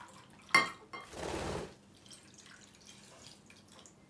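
Water poured from a small glass into a glass bowl of glue: a short splashing pour about a second in, after a sharp click near the start, then a few faint drips.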